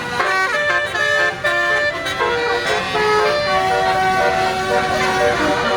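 Bus telolet horn, a Basuri multi-tone air horn, playing a tune: several horn tones sound together and step from note to note without a break.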